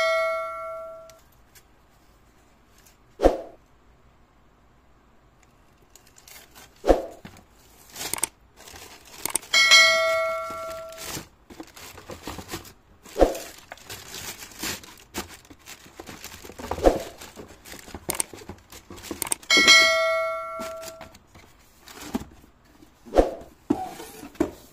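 A looping subscribe-button sound effect: a bell-like ding that rings for about a second, three times about ten seconds apart, with two short knocks between each ding. Under it, tissue paper and a cardboard shoe box rustle as they are handled.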